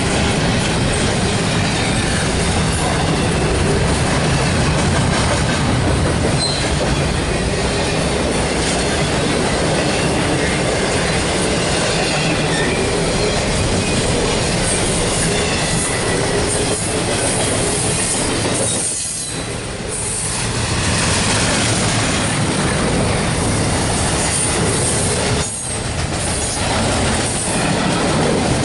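Double-stack intermodal freight cars rolling past close by: a steady, loud rumble and rattle of steel wheels on the rails, with a faint high wheel squeal over the first several seconds. The noise dips briefly twice in the last third.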